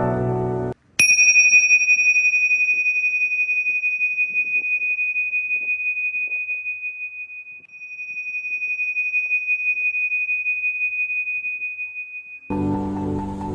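A pair of tingsha cymbals struck together once, about a second in, ringing with one clear high tone that pulses slowly and swells and fades over about eleven seconds. The ring cuts off shortly before the end, when soft music returns.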